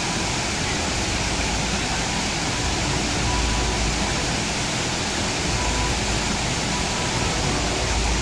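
Steady rush of running water: spring water pouring from a row of spouts into a trough, with a cascading forest stream close by.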